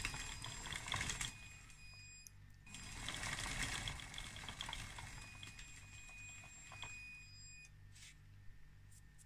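Electric track motors of a scratch-built RC CAT D6T bulldozer driving its rounded roller chains unloaded over a glued-on steel skid plate: a faint, high motor whine with light chain rattle, louder about three seconds in and stopping near the end. The chains run smoothly, with little friction on the plate.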